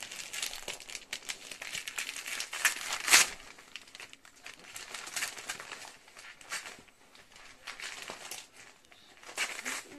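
Gift-wrapping paper being torn open and crinkled by a toddler's hands, in irregular rips and rustles, the loudest rip about three seconds in.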